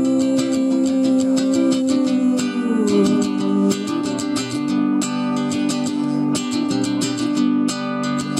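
Acoustic guitar strummed in a steady, even rhythm, with a chord change about three seconds in.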